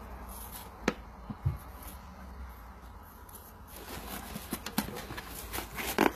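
Fingers picking at the string tied round a gift box: two small sharp knocks in the first second and a half, then rustling and clicking handling noise that grows busier over the last two seconds.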